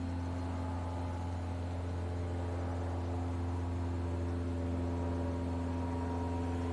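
A steady low machine hum, like a fan or small motor running, with several held tones above a strong low drone and a light hiss; it does not change.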